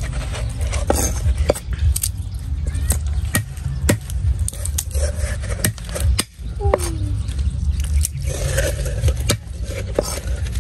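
Cleaver clicking and knocking as it peels and cuts garlic over a wooden chopping block: irregular sharp knocks and light scrapes about one or two a second, over a steady low rumble.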